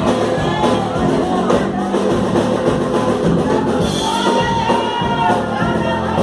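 Live gospel music: a percussion group playing drums, with voices singing over it, clearest in the second half.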